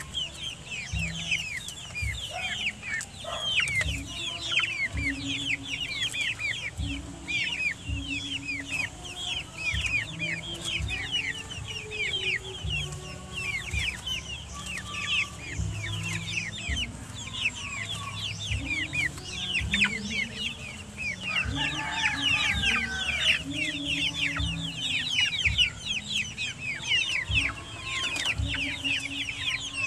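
A flock of hens clucking in low, pitched murmurs while pecking at hanging greens, over a dense, continuous chorus of short, high, falling chirps and scattered light knocks.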